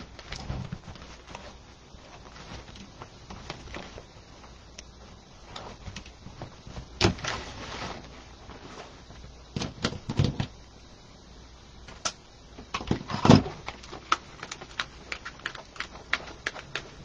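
Ribbon rustling and being handled on a wooden bow-making board: scattered light rustles and clicks, with a few louder knocks about seven, ten and thirteen seconds in.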